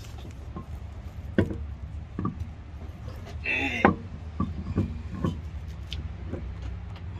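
Scattered knocks and clicks, a dozen or so at irregular intervals, over a low steady hum, with a brief wavering pitched sound about three and a half seconds in.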